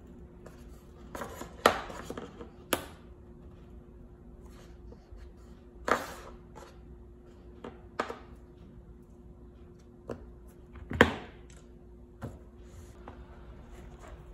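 Hands handling an iPad Pro in a hard case: scattered sharp taps and clicks from fingers, the case and the Apple Pencil, the loudest about eleven seconds in. Near the end, a soft rustle as the folio cover is lifted and folded over.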